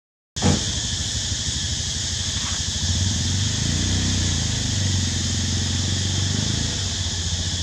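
Steady low rumble of a running engine, with fine rapid pulsing, under a constant high hiss. The audio drops out for a split second at the very start.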